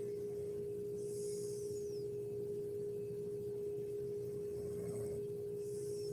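A steady, even-pitched hum runs throughout. Over it come two faint high whistling sounds, each falling in pitch at its end, about four and a half seconds apart, fitting the slow breaths of a sleeping woman.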